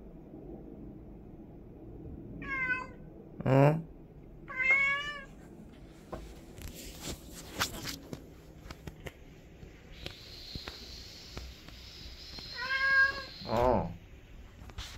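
Orange tabby house cat meowing: three meows in quick succession a couple of seconds in, then two more near the end.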